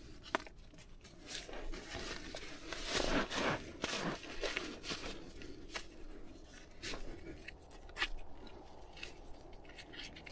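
Rustling and scraping as a hiking shoe is handled, put on and its laces pulled tight, with a few sharp clicks and bursts of fabric and gear rustle.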